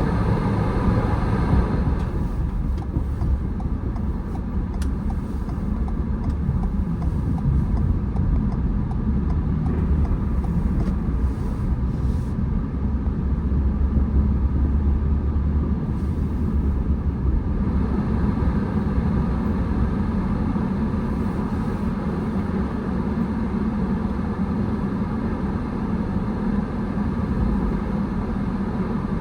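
Car driving on the road: a steady low rumble of engine and tyre noise, heavier for a while around the middle.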